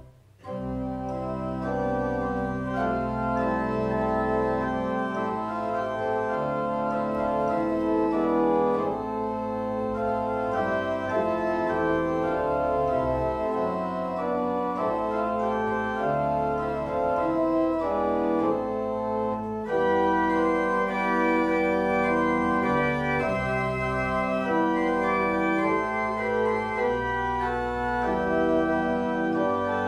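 Church organ playing a slow interlude in sustained chords over long-held pedal bass notes. It comes in just after a momentary break at the start, and about two-thirds of the way through it grows fuller and a little louder.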